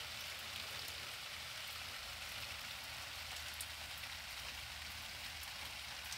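Light rain falling steadily, a continuous hiss with a few faint sharper drop ticks.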